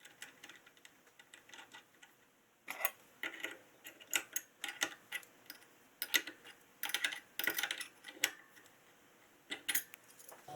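Irregular clusters of light, sharp clicks and taps, starting and stopping in short runs from about three seconds in.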